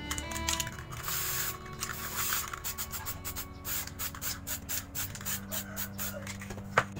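Aerosol spray paint can hissing as pink paint is sprayed onto paper: a longer hiss about a second in, then many short bursts. One sharp click near the end.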